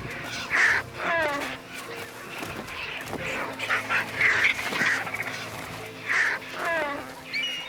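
Scavenging birds squabbling over scraps at a carcass: repeated harsh calls, some falling in pitch, over background music.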